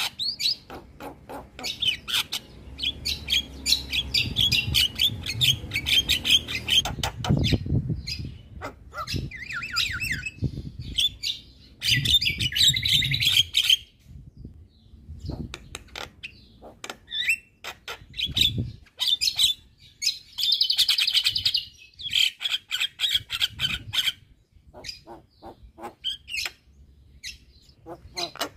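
Javan myna chattering in rapid bursts of harsh, clicking calls with short gaps between phrases, a low rumble under the first half.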